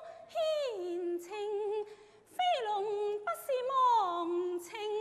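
Cantonese opera singing in a high voice: drawn-out sung phrases with long downward pitch slides and held, slightly wavering notes, broken by short breaths near the start and about two seconds in.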